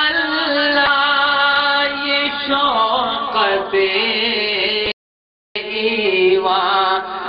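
A voice singing a devotional chant (manqabat) in long held notes that waver and glide downward. The sound cuts out completely for about half a second around five seconds in.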